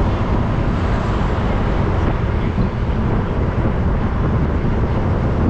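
Wind rushing over the microphone of a moving bicycle, a steady loud rumble with no let-up.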